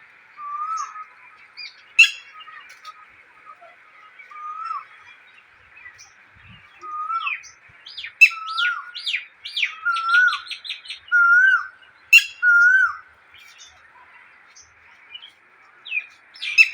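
Songbirds singing: one bird repeats a short whistled note that swoops up and down, about every one to two seconds, while others add sharp high chirps and a quick run of rapid notes about halfway through. A steady high hiss lies underneath.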